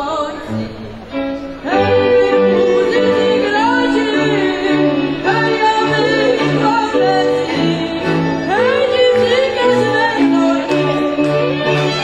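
Goral folk band of violins and a cello playing a lively tune, with a voice singing sliding high notes over it. The full band comes in loud about a second and a half in.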